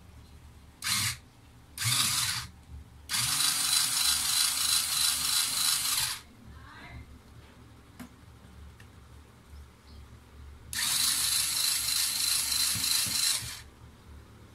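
Small cordless electric screwdriver running in bursts as it backs screws out of a laptop's bottom case: two short pulses, then a steady high whir of about three seconds, a pause, and another run of about three seconds.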